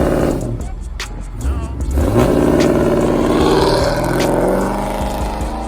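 A muscle car's engine revving hard: the revs fall away, climb again about a second and a half in, hold high for a couple of seconds, then drop back.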